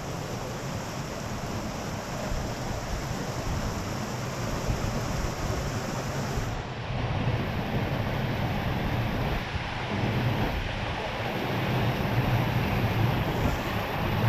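Sea surf washing onto the beach, with wind rumbling on the microphone; the noise grows a little louder in the second half.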